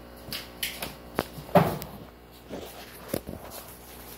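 Handling noises of plastic fish bags on a wooden workbench: crinkling plastic and a string of short clicks and knocks, the loudest about one and a half seconds in.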